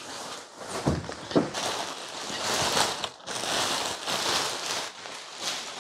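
Plastic wrapping crinkling and rustling while a wrapped bassinet carrying case is pulled out of a cardboard box, with two knocks about a second in.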